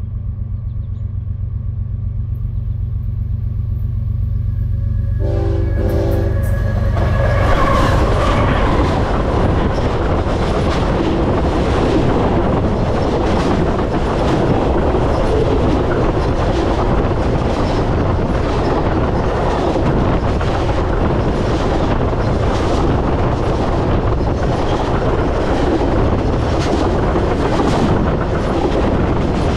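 A freight train approaching and then rolling directly over the microphone placed between the rails. The locomotive's engine rumbles as it nears, and its horn sounds for about two seconds about five seconds in. From about eight seconds on, the steel wheels and cars pass overhead loudly, with a repeating clatter of wheels over the track.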